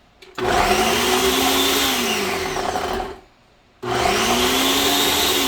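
Countertop blender running, pureeing tomatoes, bell peppers and hot peppers into a sauce. It switches on about half a second in, stops just after three seconds, and starts again under a second later. The motor's pitch rises and then sinks in each run.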